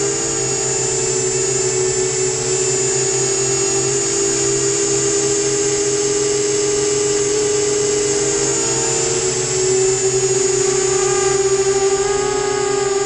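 FT250 quadcopter's brushless motors and propellers whining steadily, heard close up from the camera on the quad itself, several motors at slightly different pitches; the pitches shift and the sound grows a little louder about ten seconds in.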